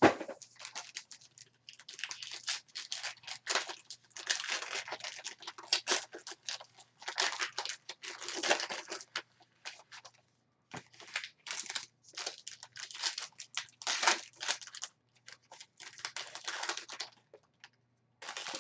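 Plastic and foil packaging of football trading card packs being torn open and crumpled: an irregular run of rustling tears with a few short pauses, over a faint steady low hum.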